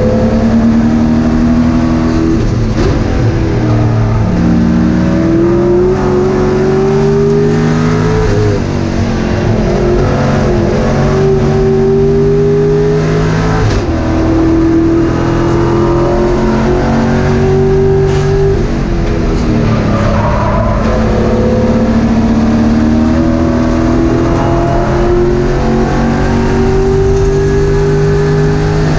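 Race car engine heard from inside the cockpit, running hard on track. It climbs in pitch under acceleration and drops back at each shift or braking zone, several times over.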